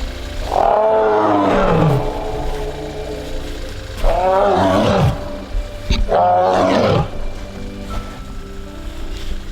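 Amur tiger calling three times, each call a long moaning cry that rises and then falls in pitch.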